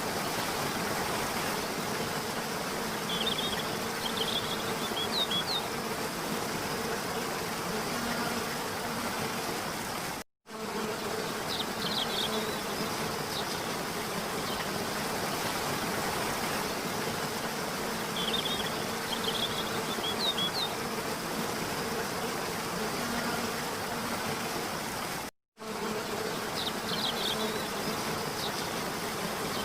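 Waterfall water rushing steadily, with a few clusters of short high chirps over it. The sound cuts out for a split second twice, about fifteen seconds apart, where the recording loops.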